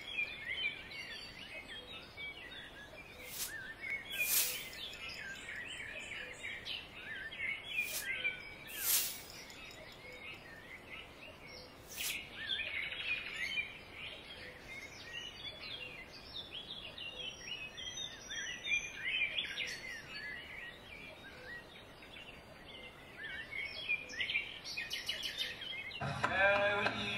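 Many small birds chirping and calling over faint outdoor hiss, with a few sharp, louder sounds standing out. Near the end, music begins.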